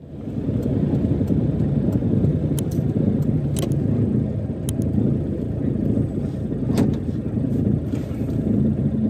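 Zastava Yugo's engine running, heard from inside the cabin as a steady low hum, with a few faint clicks.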